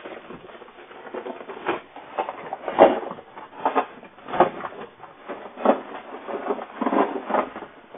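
Irregular knocks, clatter and rustling of phone boxes being grabbed from a shop display counter, several strokes in a row, heard through a low-quality CCTV microphone.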